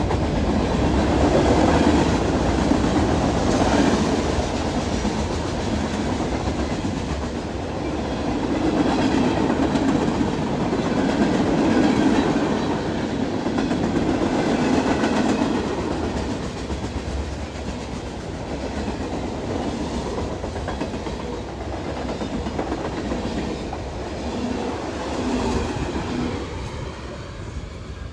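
CSX freight train rolling past at speed, its cars clattering and rumbling over the rails in a continuous, swelling and easing noise that grows quieter near the end as the train moves on.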